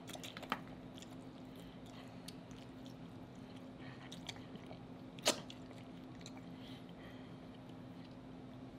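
King crab leg shell being picked apart by hand, with scattered small clicks and crackles of shell and soft chewing; a louder snap comes about five seconds in.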